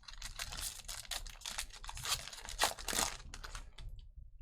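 Trading cards and their packaging being handled: a quick run of crinkling and clicking that stops near the end.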